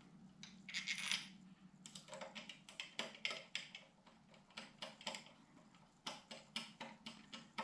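Small screwdriver turning the little screws of a focuser mounting plate into a metal telescope base: a run of light metallic clicks and ticks, with a short scrape about a second in. The screws are only being run in, not yet tightened.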